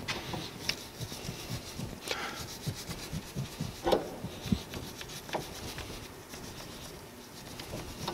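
Rust and corrosion being rubbed and scraped by hand out of the hub bore of a steering-knuckle spindle, in irregular rasping strokes with a few sharper scrapes. The bore is being cleaned so a new hub bearing will sit flush in it.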